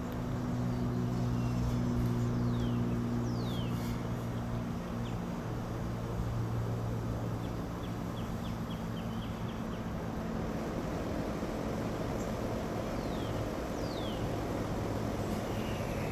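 Wild songbirds calling at dawn: a few short whistles that fall steeply in pitch, and a quick run of chips in the middle, over a steady low mechanical hum that is the loudest sound throughout.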